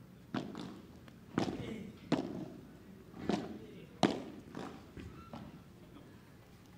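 Padel rally: a string of sharp knocks, about one a second, as the ball is struck by the paddles and bounces on the court and glass walls.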